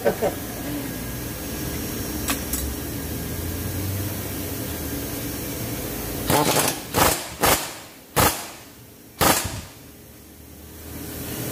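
Pneumatic impact wrench fired in about five short bursts, tightening the lower control arm bolts, after several seconds of steady shop hum.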